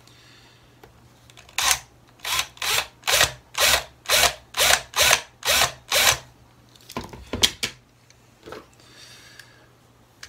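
About a dozen quick scraping strokes, roughly two a second, of a small steel screwdriver worked against the base of a diecast toy car to separate it from the body. A few sharp clicks of small metal and plastic parts follow.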